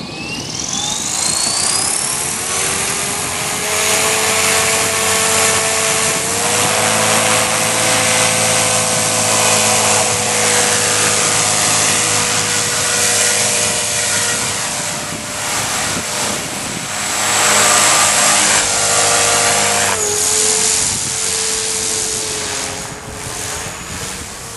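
RC helicopter's engine and rotor whine spooling up, rising in pitch over the first two seconds. It then runs at a steady pitch in flight, dipping briefly about twenty seconds in before steadying again.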